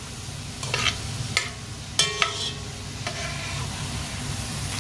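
Shredded carrots deep-frying in hot oil in a pot, sizzling steadily. A metal utensil stirs them, clinking and scraping against the pot several times between about one and two and a half seconds in.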